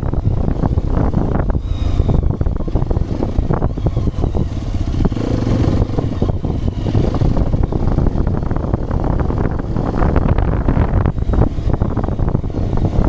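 Hero XPulse 210's single-cylinder engine running under way on a ride, mixed with steady wind rush and buffeting on the microphone.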